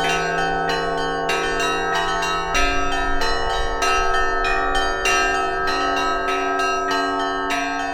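Russian-style bell ringing (zvon) by two ringers: rapid clapper strikes on small treble bells ring over the steady tones of larger bells. A heavier, deeper strike comes about two and a half seconds in and is the loudest moment.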